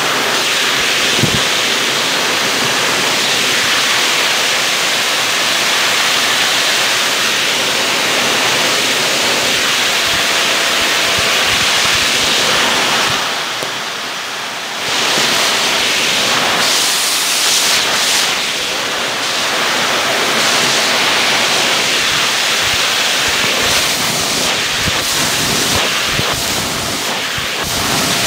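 Shark vacuum running with its upholstery tool on the bare hose, sucking carpet powder and fluff off shag carpet: a loud, steady rush of air. The rush drops briefly about halfway through, then comes back.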